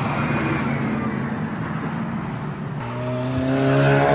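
Road traffic passing, then, nearly three seconds in, a truck's horn starts: a low, steady blast that is still going at the end.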